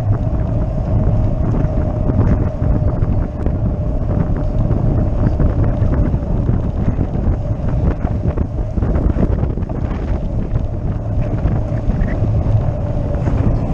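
Wind buffeting the microphone of a camera on a moving bicycle, over a steady low road rumble from the tyres, with light rattles and a constant hum.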